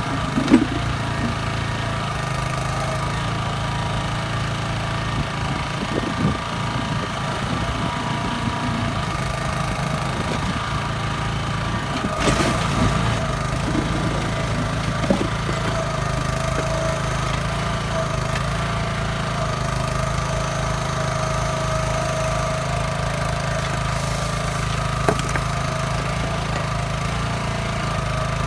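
Kellfri ATV backhoe's engine running steadily while digging, with a few short knocks now and then.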